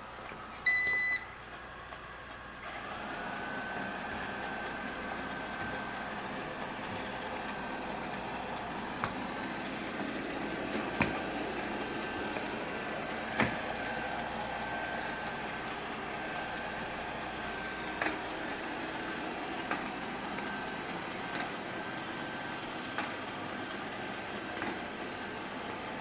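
Coredy 500+ robot vacuum giving a short beep, then its motor starting up about three seconds in and running steadily with a high whine. A few sharp knocks come through the running noise.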